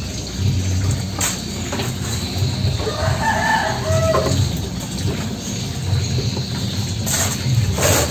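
A rooster crows once, about three seconds in, over a steady low hum and a few short knocks.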